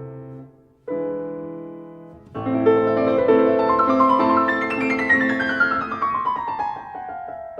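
Solo piano music. A chord dies away into a brief pause about half a second in, and a second chord follows. From about two seconds in comes a flowing run of notes that climbs and then descends.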